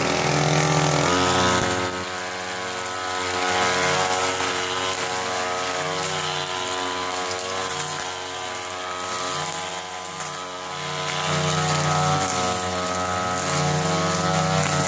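String trimmer (weed eater) running steadily while it cuts down tall weeds, its motor note wavering up and down with the throttle and the load.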